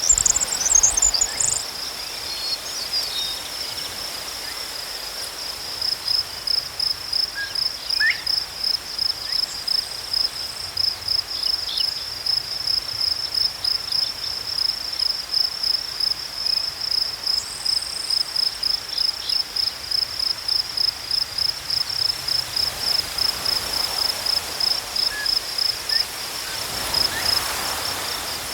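Crickets chirping: one high, steady chirp repeating at an even rhythm several times a second, over a faint night-time hush.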